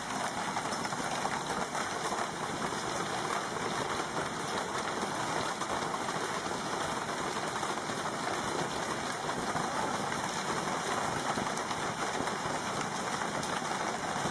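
Hailstorm: hail falling steadily in a dense, even pelting on the ground and on a parked car.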